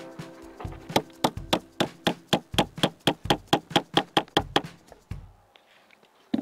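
Hammer driving a nail into a wooden board: a steady run of about fifteen quick strikes, some four a second, which stops after nearly four seconds.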